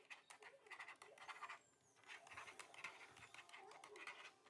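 Plastic stylus scratching across a magnetic drawing board as letters are written, faint, in short strokes with brief pauses between them.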